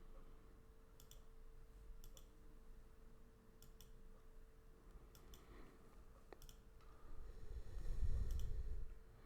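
Faint computer mouse clicks, several in quick pairs like double-clicks, spaced out over a few seconds, over a low steady hum. A low rumble rises near the end.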